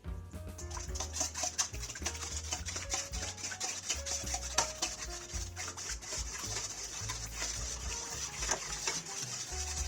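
A spoon stirring and tossing a glass noodle salad in a bowl: quick, irregular clinks and scrapes of utensil against the bowl.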